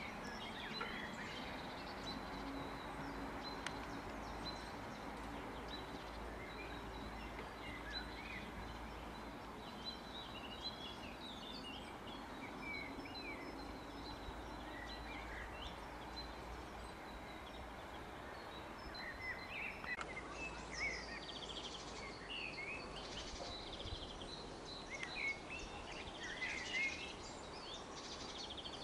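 Small songbirds chirping and singing, more busily in the last third, over a faint steady outdoor hiss. Until about two-thirds of the way through there is also a low rumble underneath.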